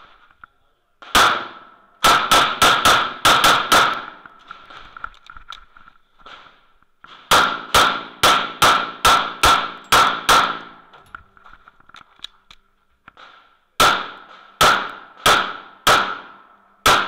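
Smith & Wesson M&P9L 9mm pistol firing in rapid strings: a single shot about a second in, then three fast runs of cracks a few seconds apart, each string several shots in quick succession.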